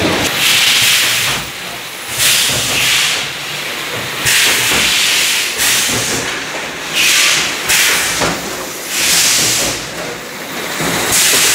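Conveyor cup-sealing machine cycling, with a loud hiss of air about every two seconds, about five times in a row, typical of pneumatic cylinders exhausting on each sealing stroke.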